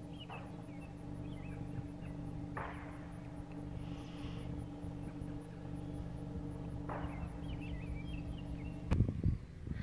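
Steady low hum, with faint bird chirps at the start and again near the end, and two soft whooshes, about 2.5 and 7 seconds in.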